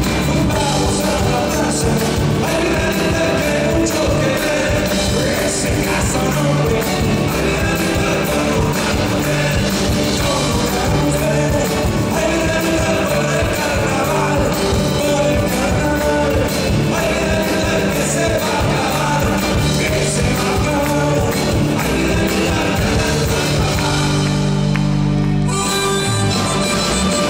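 Live Argentine folk music with a man singing into a microphone over a steady beat. A harmonica takes over near the end.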